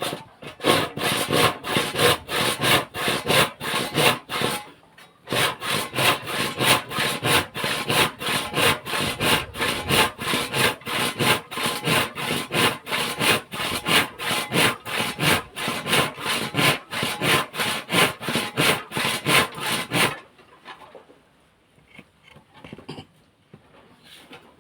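Saw cutting through wood with quick, even back-and-forth strokes. It pauses briefly about four and a half seconds in and stops about twenty seconds in.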